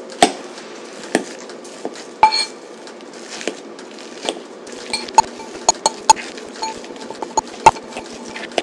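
Metal fork mashing soft cooked sweet potato in a glass mixing bowl, its tines clinking and tapping against the glass in irregular sharp strikes that come more often in the second half.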